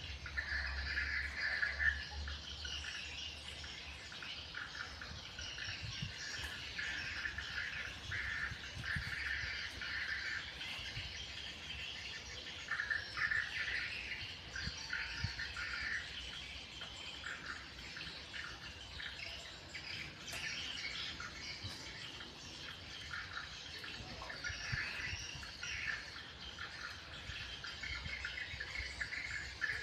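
Birds chirping and calling outdoors, many short calls, with insects chirring in the background.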